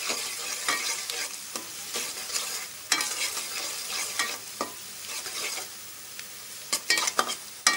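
Chopped onions sizzling in hot oil in a metal pot while a spatula stirs them, scraping and tapping against the pot now and then, with a quick cluster of taps near the end. The sizzle is the onions' water being fried off.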